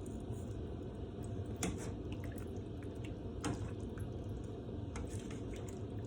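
Pot of pork-rib and tofu broth boiling, bubbling steadily, with a few light sharp clicks, about three over the few seconds.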